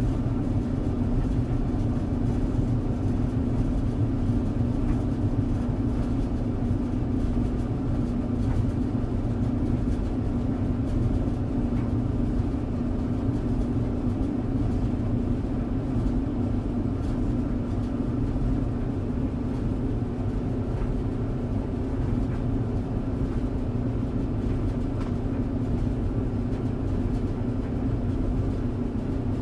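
Clothes tumble dryer running: a steady, even hum with a low rumble beneath it.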